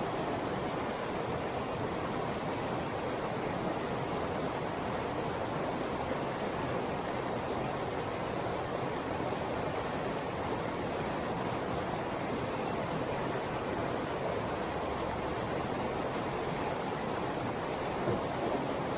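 A small river flowing: steady rushing and babbling of running water.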